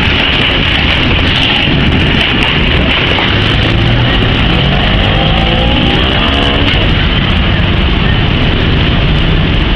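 Steady loud noise of freight wagons rolling past, then road vehicles pulling away over the crossing, with engines revving midway.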